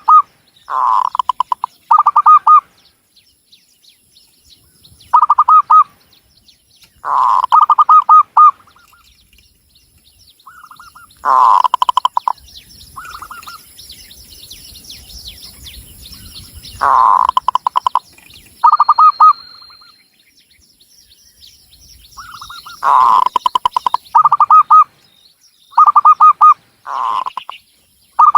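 Zebra dove (Javanese perkutut) cooing: short phrases of quick rolling coos, each lasting a second or two, repeated about nine times with pauses between. Faint high chirping of other small birds runs underneath.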